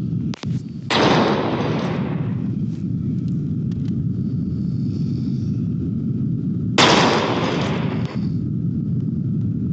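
An elderly woman snoring in her sleep: two loud, rasping breaths about six seconds apart, each starting suddenly and fading over a second or so, over a steady low rumble.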